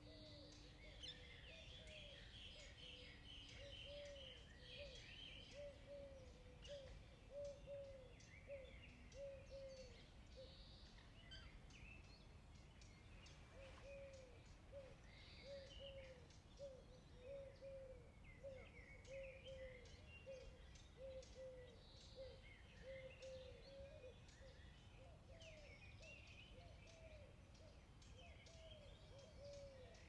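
Faint birdsong, with several birds chirping and one repeating a short low note over and over. Small crisp clicks run through it, likely from a kitten crunching dry kibble.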